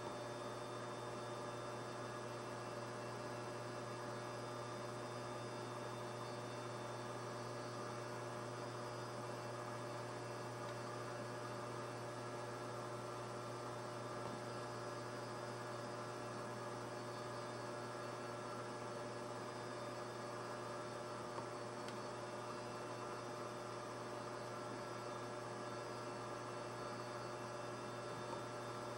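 Low, steady electrical mains hum with a faint hiss, unchanging throughout.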